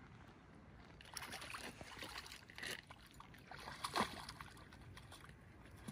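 Conger eel splashing at the water's surface against a harbour wall as it is hauled up on the line: a few short splashes, the loudest about four seconds in, over faint water noise.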